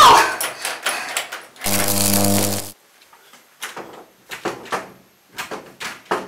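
A locked door being rattled at its doorknob and knocked on, in a run of sharp clicks and knocks, with a harsh steady buzz lasting about a second just under two seconds in. Later, more knocks come spaced a fraction of a second apart.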